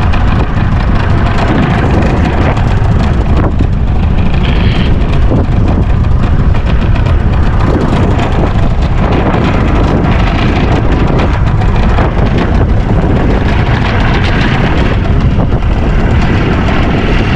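Wind buffeting the microphone, a loud, steady rumble with no breaks.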